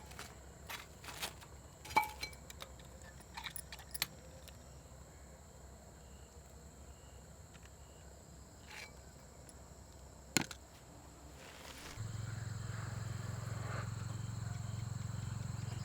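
Insects chirping with a steady thin high tone, under a few scattered light clicks and knocks. About twelve seconds in, a low steady hum comes in.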